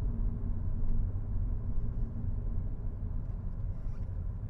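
Steady road and tyre rumble with engine hum inside a 2019 Audi A4L being driven, with no rattle or knock from the rear: the left-rear clatter is gone after the body panel was hammered away from the frame rail.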